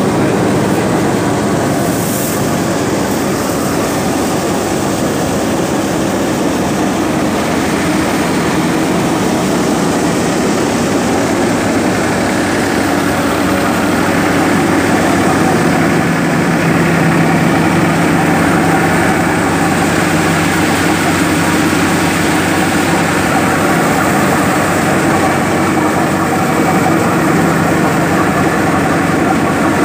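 Tractor-driven thresher threshing mustard, with the diesel tractor engine and the thresher drum and sieves running steadily under load.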